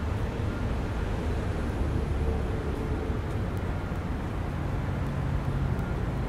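Steady low outdoor background rumble, with a faint low hum coming in about two-thirds of the way through.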